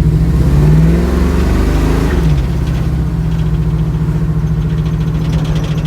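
1972 Chevrolet Camaro RS engine pulling the car along the road, heard from inside the cabin. The engine note rises, drops about two seconds in, then holds steady.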